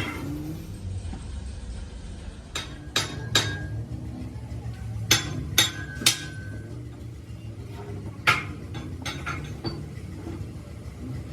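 Sharp metal-on-metal strikes and clinks on steel parts, about eight of them at uneven intervals, a few ringing briefly, over a low steady hum.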